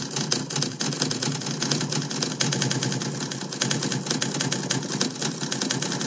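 Rapid stream of recorded typewriter keystroke sound effects, one click per letter as text types out on screen. Each click is chosen at random from three typewriter samples and played at a random volume, so the clicks vary in loudness.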